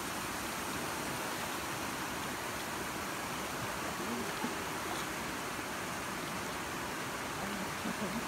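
Steady rush of falling and flowing water, with faint distant voices now and then.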